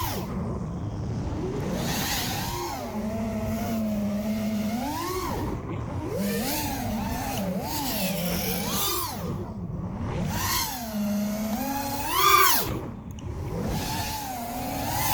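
FPV quadcopter's brushless motors and propellers whining, the pitch rising and falling again and again with throttle as it is flown aggressively, with a sharp loud rise about twelve seconds in.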